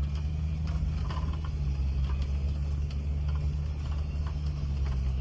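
Land Rover Discovery's engine running steadily as it crawls along a rough trail, a low even hum heard from inside the cabin, with scattered light clicks and rattles.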